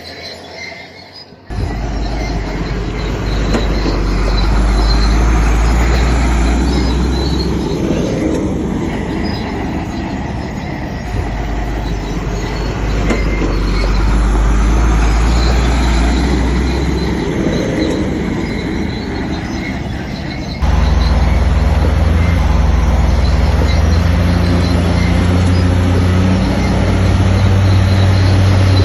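A Shantui crawler bulldozer working: its diesel engine runs under load, mixed with the grinding and squealing of its steel tracks. The sound swells twice and jumps abruptly in character twice, about a second in and near two-thirds of the way through.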